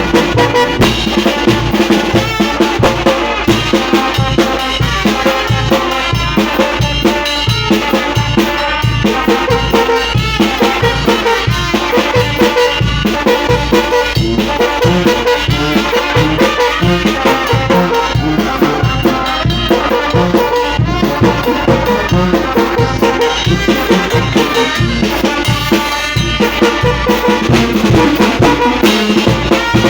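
Brass band music: trumpets playing a tune over a steady drum beat.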